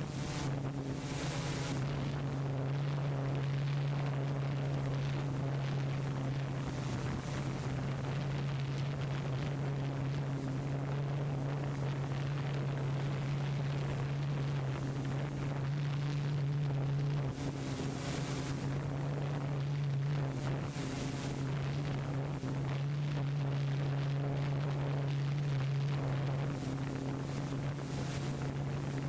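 Tarot 680 hexacopter's motors and propellers humming steadily in cruise flight, with wind gusting over the onboard microphone.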